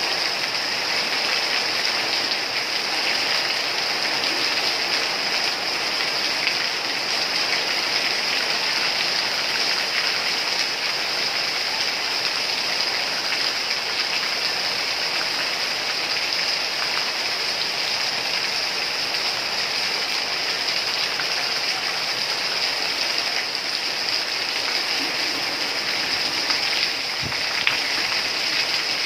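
Steady rain falling, an even hiss with a bright, high edge. A single low thud comes near the end.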